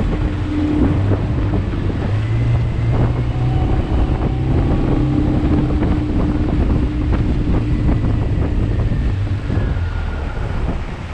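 15 hp Suzuki outboard motor running steadily at speed, pushing a rigid-hull inflatable dinghy, with wind buffeting the microphone.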